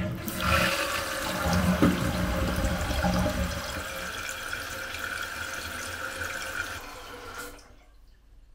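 Toilet flushing as a test after a new fill valve was fitted. Water rushes loudly for the first few seconds, then eases to a steadier hiss, which stops abruptly near the end.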